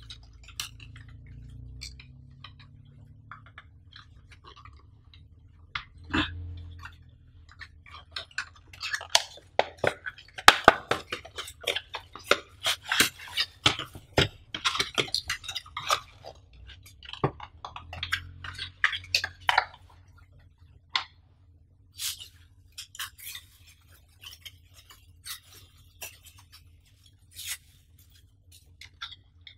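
Cardboard box and plastic wrapping handled close up as a plastic phone screen enlarger is unboxed: rustling, crinkling and light taps, a busy run through the middle, fewer and further apart near the end.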